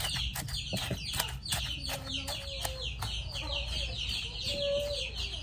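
Chickens calling: a dense run of quick, high peeps, with a few short low clucks about two seconds in and again near the end.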